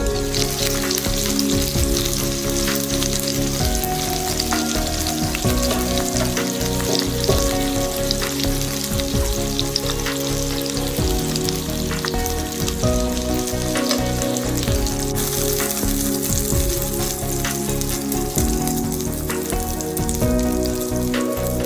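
Pork belly frying in a nonstick pan, with a steady crackling sizzle of hot fat and sauce.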